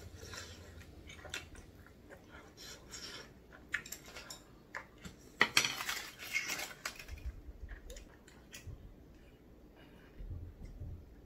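Close-up eating sounds: a spoon and wooden chopsticks clicking against a foil-wrapped takeout tray, with the loudest burst of clatter and foil rustling about six seconds in. Near the end come swallows as he drinks from a juice carton.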